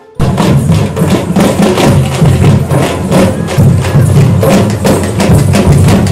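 A troupe of folk drummers beating large barrel-shaped drums slung at the waist, a fast, dense rhythm of strokes. It comes in just after a brief silence at the very start.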